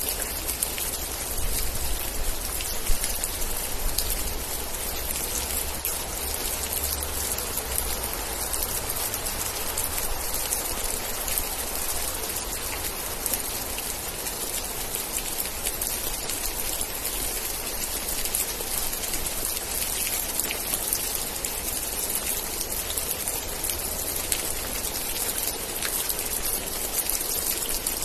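Steady heavy rain, dense with individual drops pattering on a surface. A low rumble sits under it through the first several seconds.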